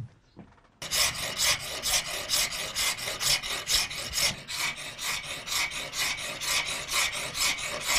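A piece of soapstone being rubbed back and forth by hand over a coarse abrasive surface to shape and smooth it: rhythmic scraping strokes, about three to four a second, starting about a second in.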